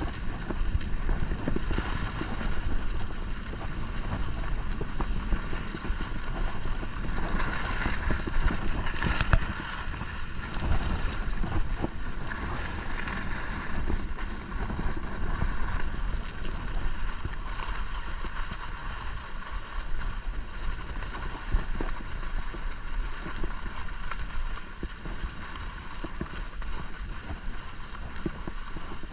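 Skis sliding and scraping over packed snow in a steady hiss, with wind buffeting the microphone as a low rumble.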